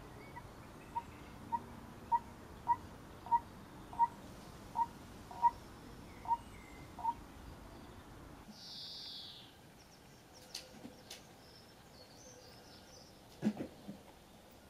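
About ten short, clear piping calls from an animal, roughly one every two-thirds of a second, the later ones dropping in pitch at their ends. A short hiss and a few faint clicks follow.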